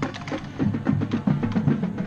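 Marching band drumline playing a cadence: a fast, steady run of drum strikes with sharp, clicking stick and rim hits.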